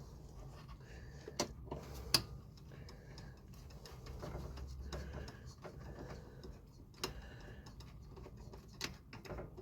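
Hand tools and a metal hose clamp being worked onto a radiator hose: scattered sharp clicks and knocks, a few of them louder, over a low rumble.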